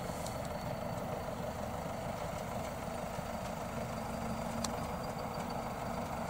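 Crawler bulldozer's diesel engine running steadily.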